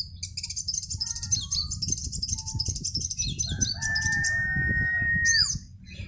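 Caged sunbirds singing a rapid, high-pitched chattering song for about three and a half seconds. A rooster then crows, one long held note lasting about two seconds that drops away at the end.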